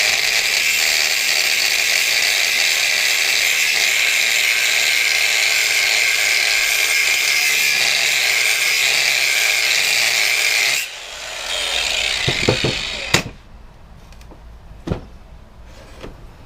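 Hand-held electric power tool running steadily at full speed for about eleven seconds, then switched off and winding down, followed by a few sharp knocks as parts are handled.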